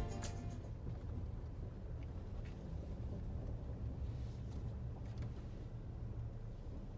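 Faint steady low rumble with a few soft clicks, as the last of the background music dies away in the first half-second.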